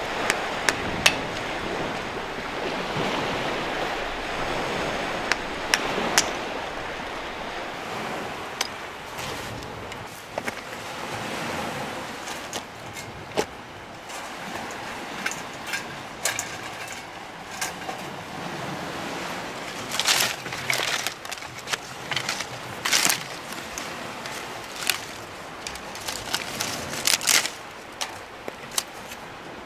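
Surf washing on the shore, loudest at first and then easing, with scattered sharp snaps and knocks, clustered more thickly near the end.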